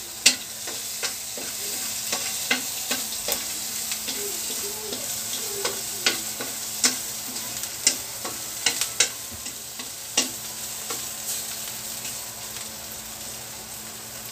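Chopped garlic sizzling in hot oil in a metal wok, with sharp clicks and scrapes of metal tongs stirring it against the pan at irregular intervals.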